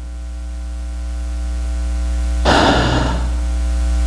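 Steady electrical mains hum from the sound system, slowly growing louder, with one short rush of noise about two and a half seconds in.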